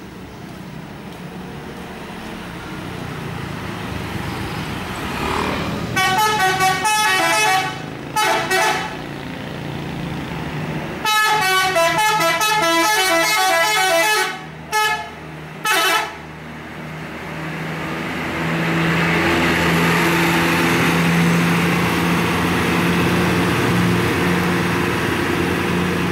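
Tour bus telolet horn, a multi-note musical air horn, playing quick rippling tunes: one run about six seconds in, a short blast, a longer run from about eleven seconds, then two short toots. Under it the bus engine draws closer and runs louder through the second half.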